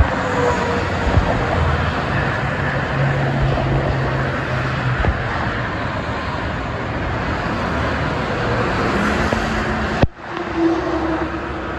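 Busy multi-lane expressway traffic heard from above: a steady rush of tyres and engines from cars and trucks passing, with a low truck engine drone standing out a few seconds in. The sound cuts out briefly about ten seconds in, then the traffic noise resumes.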